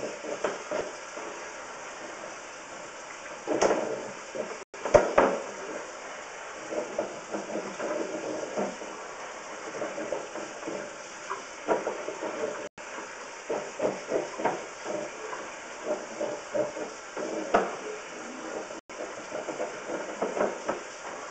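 Sewer inspection camera and its push cable being pulled back through a cast iron drain: irregular scraping and knocking over a steady watery hiss, louder knocks clustered about four to five seconds in.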